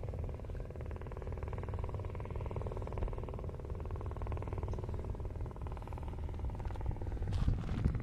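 A steady low rumble with a hum over it. A few crunching footsteps on a gravelly dirt path begin near the end.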